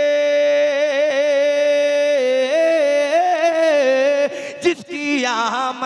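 A man singing a naat without accompaniment, stretching one word into a long held note that turns into wavering, ornamented turns, with a brief break about four seconds in and quick runs near the end.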